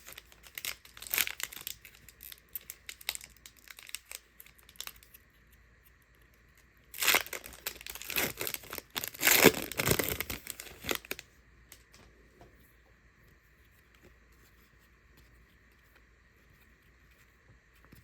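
Foil wrapper of a Donruss football card pack being torn open and crinkled, loudest in a dense stretch from about seven to eleven seconds in, after lighter rustling and crackling of wrapper and cards in the first few seconds. The last several seconds are quiet apart from a faint steady hum.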